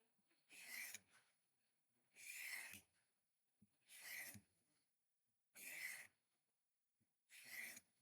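Pocket-knife blade drawn across a sharpener in slow, even scraping strokes, five of them, about one every second and a half.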